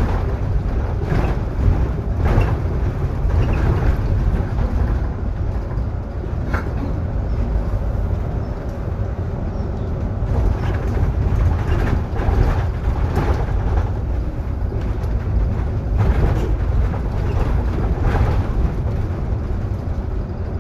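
Solaris Urbino 18 IV articulated bus under way, heard on board: a steady low drivetrain and road rumble, with irregular creaks and knocks every second or two, one with a brief squeal about a third of the way in. The creaking comes from the squeaking articulation joint between the two sections.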